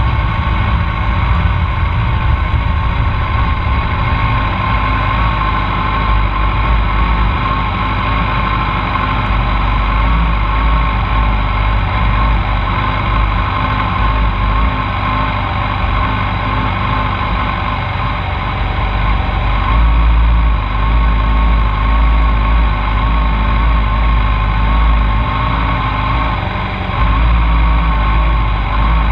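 Middleweight sport motorcycle engines idling on a race starting grid: a steady engine drone over a low rumble that swells about two-thirds of the way through and again near the end.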